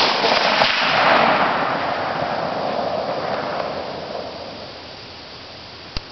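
An L1A1 rifle shot, 7.62×51mm NATO, cracks at the very start, and its report rolls on as a long echo that swells about a second in and fades away over the next four seconds.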